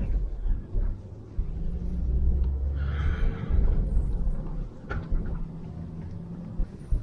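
Off-road vehicle driving over rough, rutted ground: a steady low rumble of engine and body, with a few knocks and jolts. A brief higher-pitched sound comes about three seconds in.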